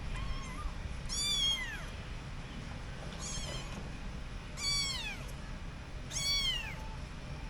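Kitten meowing repeatedly: about five high-pitched meows, each rising briefly and then falling in pitch, three of them louder, the first faint and short.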